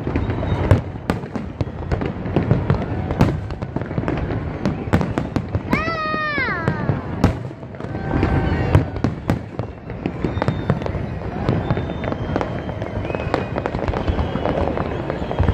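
Fireworks display: continuous bangs and crackling as many shells burst, with a short falling squeal about six seconds in.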